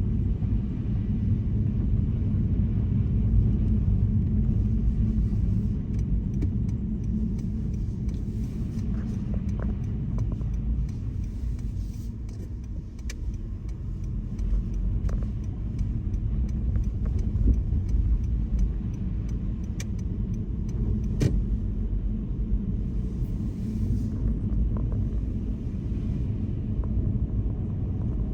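Car driving: a steady low rumble of tyre and engine noise, with scattered faint clicks.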